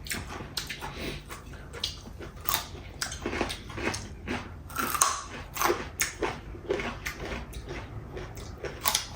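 A person chewing and biting mouthfuls of chicken biryani, with irregular clicking mouth sounds.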